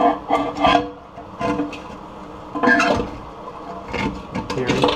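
Vise grips working a rusted toilet tank bolt up out of the tank: intermittent metal clinks and scrapes, in several short bursts.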